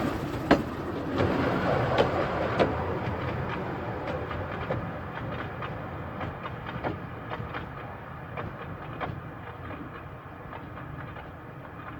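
Narrow-gauge steam train rolling by, its wheels clicking over the rail joints, fading steadily as it moves away.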